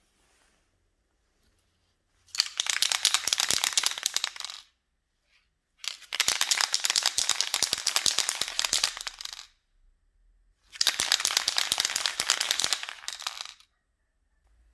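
A can of gold aerosol spray paint being shaken in three bouts, about two to four seconds each, its mixing ball rattling fast inside the can.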